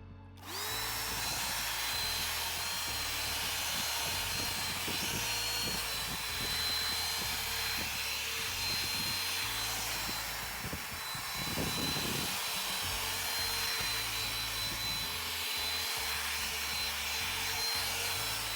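Small electric motor of a cordless power tool running steadily, with a high, even whine over a hiss; it starts about half a second in.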